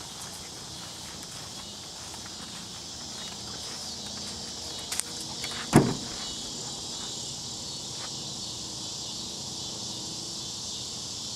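Steady, high chorus of insects, crickets by the tags, with a few light clicks and one sharp knock just before halfway.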